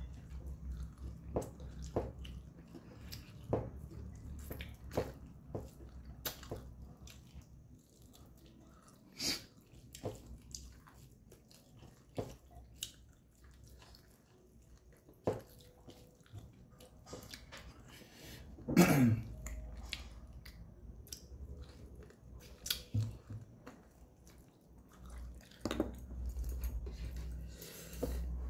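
Close-up eating sounds: a person chewing mouthfuls of rice and dried-meat curry eaten by hand, with many small wet clicks and smacks of the mouth. About two-thirds of the way through comes a brief vocal sound that falls in pitch, the loudest moment.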